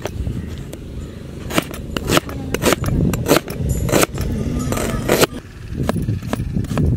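Steel cleaver chopping onion on a wooden chopping board: sharp knocks of the blade hitting the wood, about one every half second to a second, a little uneven.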